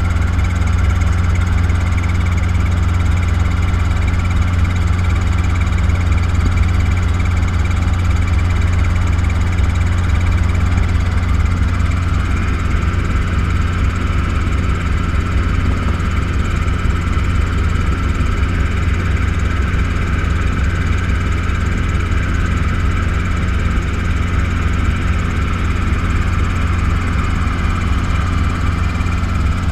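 Robinson R22 helicopter in flight: the steady drone of its four-cylinder piston engine and rotors, with a strong low hum and no change in pitch.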